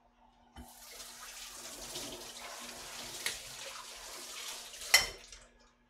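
Kitchen tap running into a stainless steel sink: water comes on with a knock about half a second in, runs steadily, and stops shortly before the end. A sharp metallic clank just before it stops is the loudest sound.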